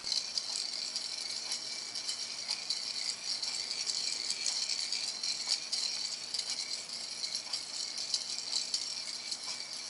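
Electrically driven orrery's metal gear train running, a continuous fine rattle of meshing gear teeth and moving parts, with one sharp click at the very start.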